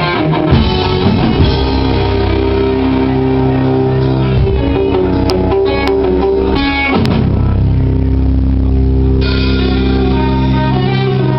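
Live instrumental prog rock band playing: sustained electric guitar and bass chords with drums, the texture changing about two-thirds of the way through.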